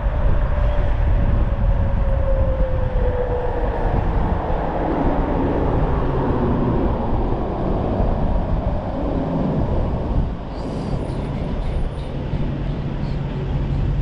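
Wind rushing over the microphone as a 72-volt electric bike rides at high speed. The 3000-watt motor's whine falls in pitch over the first few seconds as the bike slows. About ten seconds in the rush eases a little, leaving a low steady hum.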